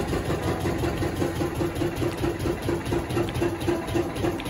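Borewell drilling rig's engine running steadily, with a regular throb about three to four times a second.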